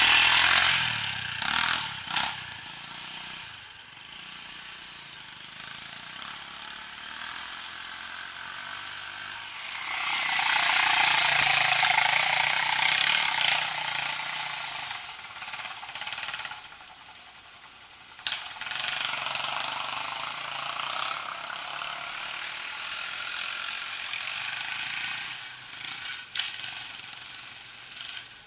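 Off-road motorcycle engine running and revving in surges, loudest about ten seconds in, with a few sharp knocks along the way.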